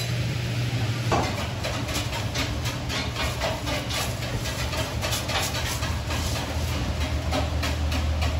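Kitchen clatter: irregular clicks and knocks of utensils against cookware, starting about a second in, over a steady low hum.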